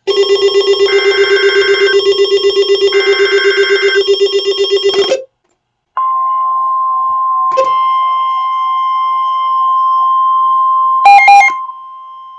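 Weather radio alert sequence: a receiver's loud pulsing electronic alarm, about ten beats a second, goes off over the warbling bursts of the SAME digital alert header and stops after about five seconds. After a short pause comes the steady high-pitched warning tone that heads a severe thunderstorm warning, broken briefly near the end by a loud electronic chirp.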